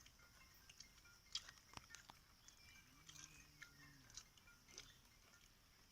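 Faint chewing and biting on roasted chicken leg, heard as scattered small clicks and smacks.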